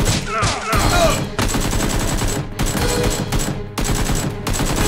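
Rapid gunfire, shots in quick succession like machine-gun bursts, the battle sound laid over a Nerf-blaster firefight.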